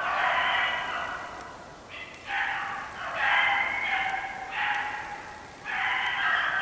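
A pack of hare hounds baying as they run a hare's track, several voices overlapping in long drawn-out bays. The chorus swells and fades in waves, dropping off briefly about two seconds in and again near the end.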